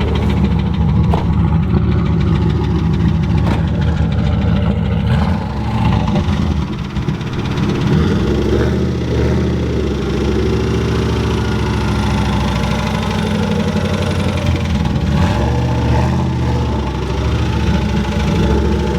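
Turbocharged Ford Mustang Bullitt's 5.0 V8 running with a knocking engine noise, its engine note falling and rising twice. The knock comes from a failing connecting-rod bearing: rod knock.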